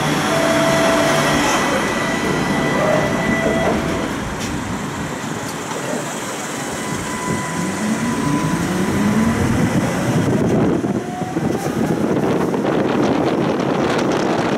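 Electric tram running, its motor whine rising in pitch about halfway through as it picks up speed, followed by steady running noise.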